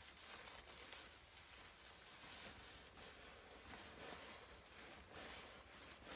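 Near silence: faint background hiss with a few soft ticks and rustles.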